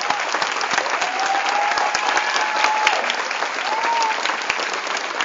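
Audience applauding steadily, with a few long calls rising above the clapping.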